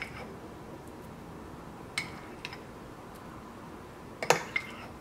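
A spoon tapping and clinking against a glazed ceramic bowl as dollops of mayonnaise are scooped in: a few light, separate clicks, the loudest a quick pair a little after four seconds in.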